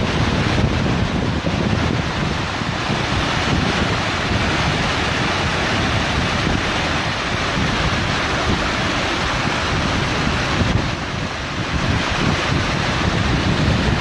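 Steady rush of a waterfall from above, mixed with wind buffeting the microphone.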